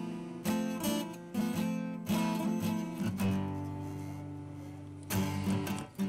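Background music: acoustic guitar strumming chords, with one chord left ringing for a couple of seconds around the middle before the strumming picks up again near the end.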